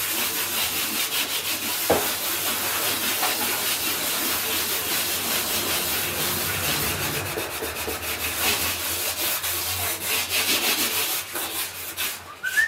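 Hand sanding of a painted wall with a sanding block, in rapid scratchy back-and-forth strokes, as surface preparation before repainting. It stops near the end.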